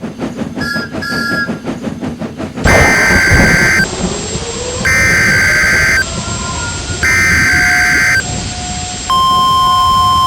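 Emergency weather alert signal: three harsh, buzzing data bursts of about a second each, a second apart, the Emergency Alert System header. About nine seconds in, a steady, high alert tone takes over. Before the bursts, rapid, even clicking for a couple of seconds.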